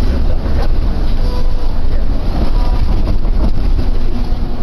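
Running noise of a Rokko Liner rubber-tyred automated guideway train heard from inside the car: a loud, steady low rumble, with a faint whine rising in near the end.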